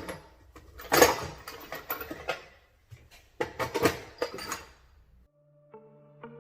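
Metal parts and tools clanking and rattling in several bursts during a small-block Chevy engine teardown, the loudest clank about a second in. Background music comes in near the end.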